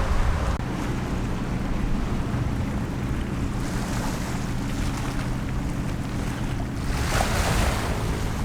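Sea waves washing on a beach with wind buffeting the microphone, over a low steady hum; the wash swells about seven seconds in.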